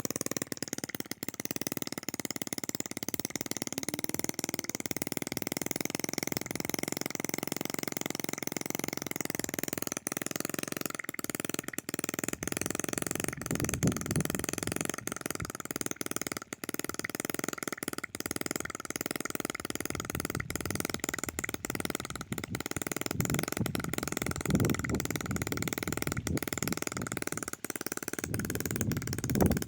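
Homemade two-stroke engine built from a refrigerator compressor running steadily: rapid firing clicks over a constant whine, with a few louder low thumps about halfway through and near the end.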